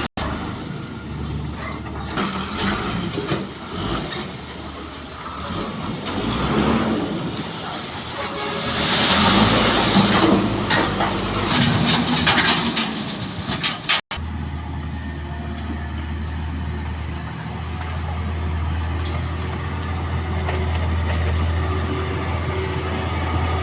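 Vehicle noise at a roadside, with some voices in the first half. After a cut about 14 s in, a heavy vehicle engine runs steadily with a deep low hum.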